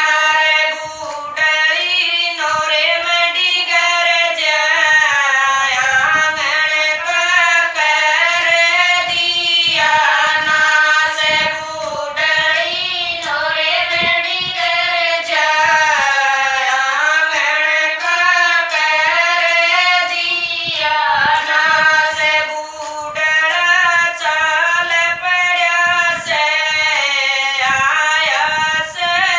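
Women singing a Haryanvi bhajan together in one melodic line, continuous and steady, with frequent short sharp taps running through it.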